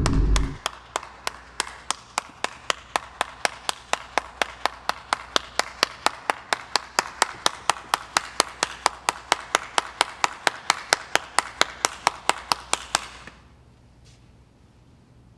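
A single person clapping slowly, the claps speeding up steadily from about two a second to four or five a second and then stopping abruptly near the end. In the first half-second, the deep 'vine boom' sound effect dies away.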